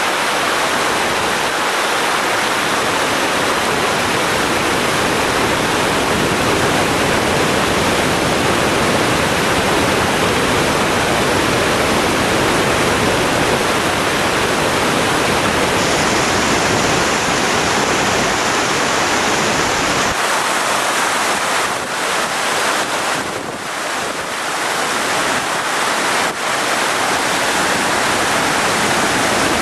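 Waterfall and river rapids: a steady, loud rush of fast water pouring over rock, its deep part thinning out about two-thirds of the way through.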